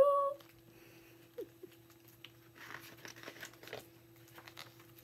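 Pages of a hardcover picture book being flipped, paper rustling and flapping for about a second and a half in the middle. This follows the last half-second of a woman's sung "woo" imitating a train whistle right at the start.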